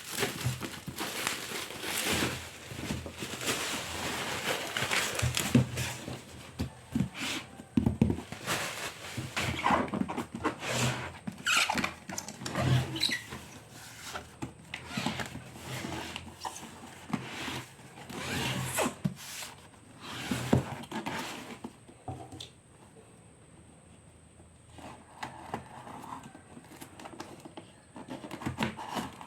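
Laptop packaging being handled and opened: irregular knocks, scrapes and rustling of cardboard and plastic wrap, dying down for a few seconds about two-thirds of the way through.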